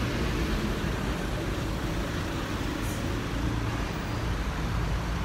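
Steady city street traffic: a continuous low rumble of vehicle engines with road noise.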